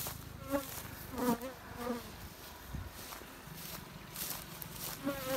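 Honeybees flying close past the microphone: several short buzzes whose pitch bends up and down as each bee passes, over a steady low hum.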